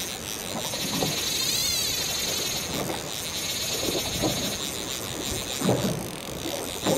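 Wind rushing over the microphone and choppy water slapping against the boat, with a swirling surge about a second and a half in and a few short, low knocks or grunts in the second half.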